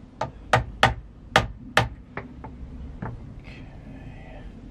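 A small hammer tapping the rear sight of a flintlock rifle sideways in its dovetail to adjust windage to the right. There are about eight sharp metallic taps over the first three seconds, two to three a second, the middle ones loudest, then the tapping pauses.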